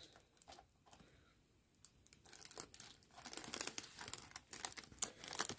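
Faint crinkling and rustling as a diamond painting canvas is handled. After about two near-silent seconds it comes in irregular crackly bursts.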